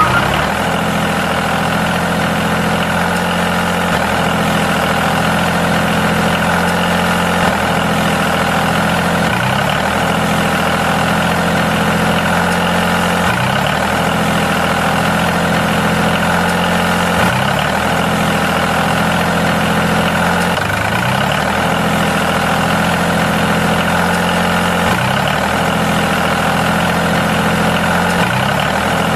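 Diesel tractor engine running steadily at idle, with a short rise in pitch about every four seconds at even spacing.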